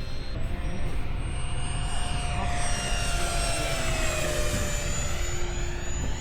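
Whine of a 64mm electric ducted fan on a small RC sport jet in flight, dropping in pitch from about two seconds in as the jet passes by.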